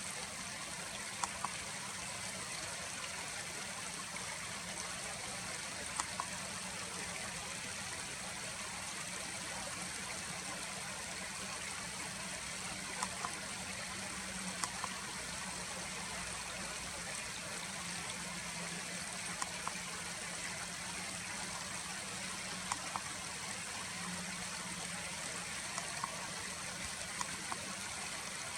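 Steady rush of a flowing stream, with short sharp ticks, often in pairs, every few seconds.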